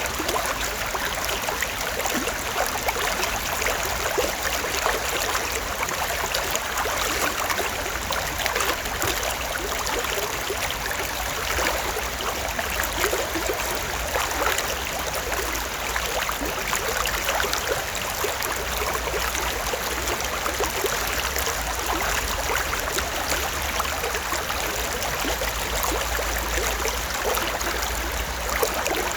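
Stream water running and babbling steadily, with a low steady rumble underneath.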